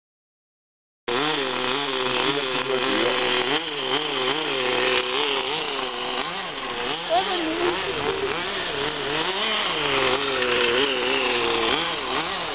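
Veco .21 two-stroke glow engine of a vintage RC buggy running, starting abruptly about a second in, its pitch rising and falling over and over as the throttle is blipped while it drives.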